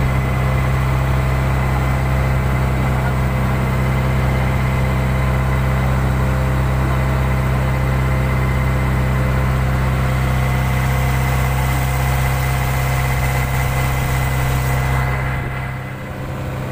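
Inboard engine of a wooden fishing boat running steadily at a constant speed, a deep even drone with an overtone hum. Near the end its sound drops and thins briefly.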